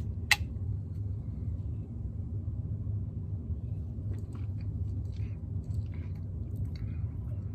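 A plastic soda bottle's screw cap twisted open, with a sharp click about a third of a second in, then soft gulping and swallowing as the soda is drunk, over a steady low hum.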